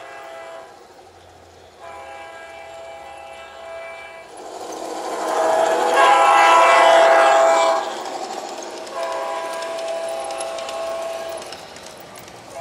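Diesel locomotive horn sounding in a series of long blasts as a G-scale garden train runs past. The loudest and longest blast comes about five seconds in, together with the rush of the train going by, followed by one more blast.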